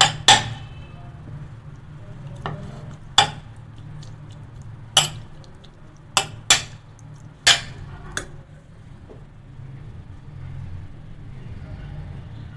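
A metal spoon clinking and tapping against a stainless steel pan as chopped raw chicken is scraped in: about eight sharp clinks in the first eight seconds, then only a low steady hum.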